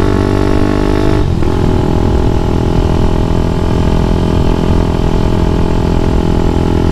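Grom-clone mini motorcycle's small single-cylinder engine running steadily under way. The pitch dips briefly about a second in, then picks up and holds.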